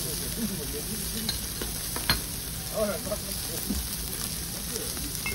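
Thick slices of pork belly sizzling steadily on a charcoal-heated grill plate. A single sharp click about two seconds in.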